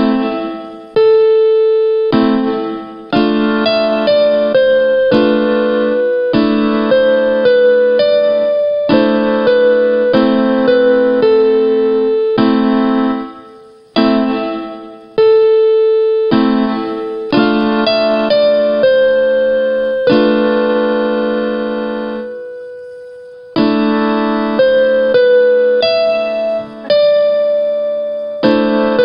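Piano playing a slow mazurka: a melody over chords, each struck note or chord dying away. A held chord fades out about two-thirds of the way through before playing resumes.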